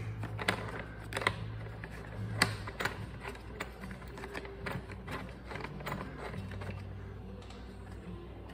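Irregular small clicks and knocks of hand-handled plastic and metal parts as a black battery-terminal cover is worked over a terminal connector, the sharpest clicks about a second and two and a half seconds in, over a low steady hum.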